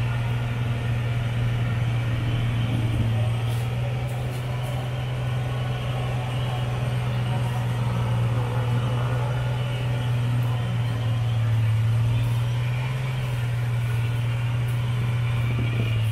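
An off-road vehicle's engine running steadily as a low, even hum, growing a little louder about eleven seconds in.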